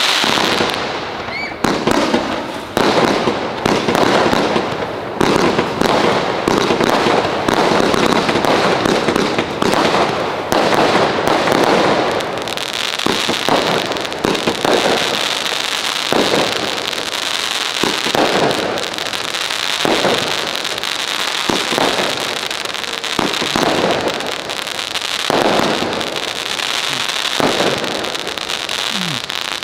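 Fireworks display: a dense, continuous run of bangs and crackling bursts, with a steady high hiss joining about twelve seconds in.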